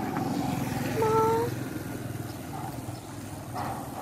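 A brief pitched animal call about a second in, rising slightly, over low background noise.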